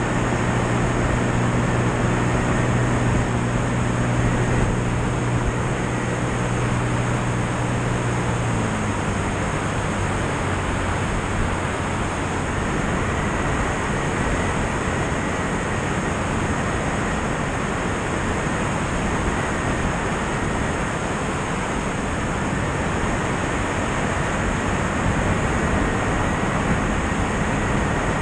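Light aircraft in flight: a steady rush of wind over an outside-mounted camera with the engine and propeller drone underneath. About eight seconds in the engine note drops lower and quieter, and it rises slightly again near the end.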